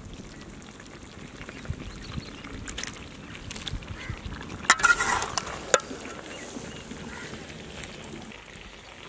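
Metal ladle stirring and lifting thick chicken gravy in a large iron kadai, with a louder burst of scraping and two sharp knocks of the ladle against the pan about five seconds in.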